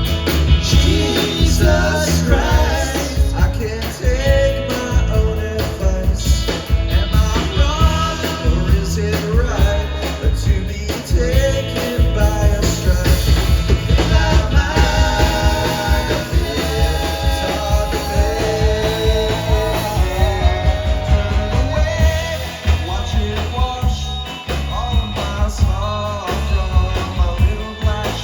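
Live jangle-pop rock band playing a song, with a strong bass line, drums and a lead vocal singing over the band.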